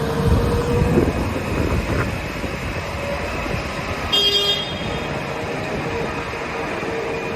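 A heavy vehicle's engine running with a dense rumble, and a short horn toot about four seconds in.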